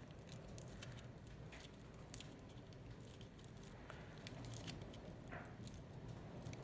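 Aluminium foil crinkling faintly as a fingernail presses into it, a scatter of small ticks and crackles.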